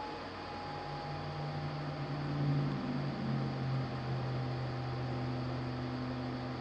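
Steady background hiss with a low electrical hum that shifts slightly in pitch a couple of times, and a faint higher tone: room noise.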